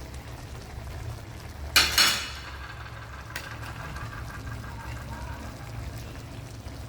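Cooking utensil stirring lobster and vegetables in a sauce in a pan, with two sharp metal clatters against the pan about two seconds in, over a low steady hum.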